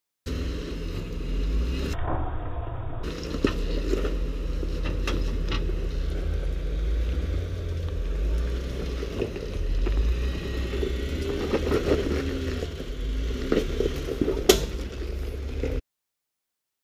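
Jeep Wrangler Rubicon engine running low and steady as it crawls over rock, with tyres crunching and scraping on stone and scattered knocks, and one sharp crack near the end.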